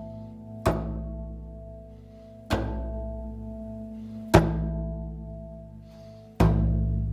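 Shamanic frame drum, tuned to the same key, struck by hand about every two seconds: four slow, deep beats that each ring out and fade. Sustained notes of a RAV Vast steel tongue drum in Celtic double-ding tuning ring with the beats.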